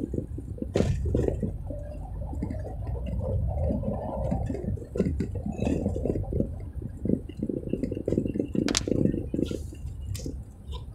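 Low, uneven rumble of a moving car heard from inside the cabin, with irregular clicks and knocks scattered through it.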